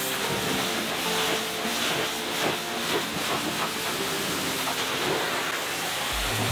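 Pressure washer jet blasting mud off a car's alloy wheel and tyre: a steady hiss of spraying water. Background music plays underneath, with a heavy bass beat coming in near the end.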